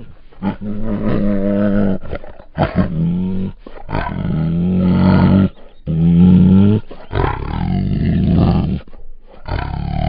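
Female Bengal tiger giving a run of hoarse, growling roars: about five long calls of a second or so each, with short pauses between, and another starting near the end.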